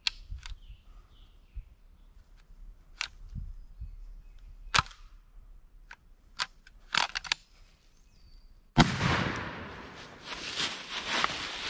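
A turkey hunter's shotgun fires once, a sudden loud blast about three-quarters of the way in, followed by a few seconds of rushing, crackling noise. Before the shot come a few scattered sharp snaps and clicks.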